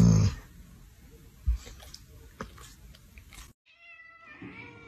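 A short low groan ends a moment in, followed by a quiet stretch with a few faint clicks. Near the end a domestic silver tabby cat gives one drawn-out meow whose pitch falls away at the close.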